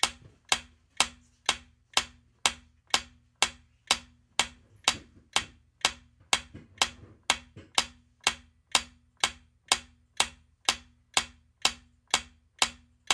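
Countdown timer sound effect: a clock-like tick repeating evenly about twice a second, marking the seconds of a quiz answer countdown.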